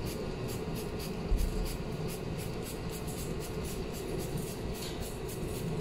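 Steady low hum and rumble of galley machinery and ventilation, with a quick, even run of short hissing ticks over it and one dull thump about a second in.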